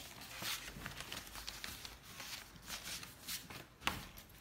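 Sheets of paper and card rustling as they are shuffled and handled by hand, in short repeated rustles, with one sharp tap about four seconds in.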